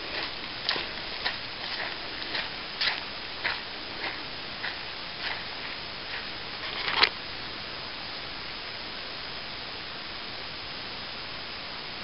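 Footsteps crunching on a dry dirt trail at an easy walking pace, a step about every half second or so. They end with a louder scuff about seven seconds in as the walking stops, and after that only a steady hiss remains.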